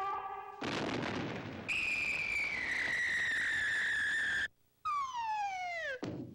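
Cartoon sound effects of a cannon shot: a blast about half a second in, then a long whistle sliding slowly down in pitch. After a brief gap comes a second, faster falling whistle that ends in a short crash near the end.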